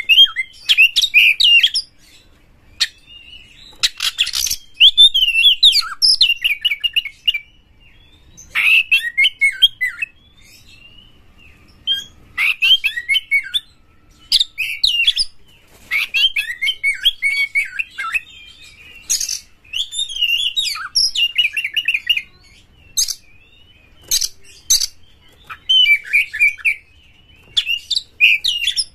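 Male oriental magpie-robin singing vigorously: bursts of fast, varied whistles and trills, each one to two seconds long with short pauses between, and a few sharp, harsh notes among them.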